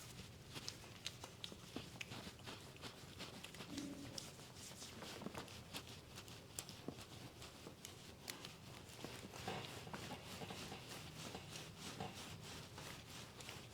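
Faint massage sounds: hands working on skin, many soft irregular taps and clicks, several a second, over a low steady hum.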